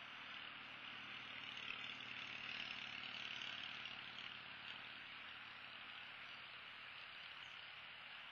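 Faint, steady outdoor background noise picked up by the nest-cam microphone: an even hiss with a low steady hum underneath, swelling slightly a couple of seconds in.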